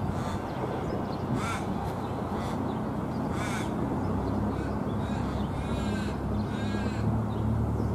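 A crow cawing four times, about every one to two seconds, over the steady low rumble and hum of an Alstom X'Trapolis electric suburban train pulling away.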